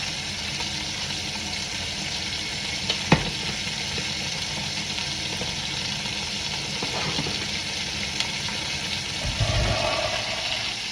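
Chicken legs sizzling steadily as they sear in hot oil in a Dutch oven. A sharp clack about three seconds in, and a low thump near the end.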